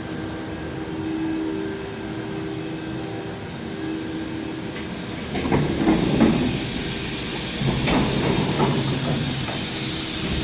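Steady machinery hum with a few held tones. About five seconds in, a single click, then a louder rattling, rumbling stretch lasting about four seconds.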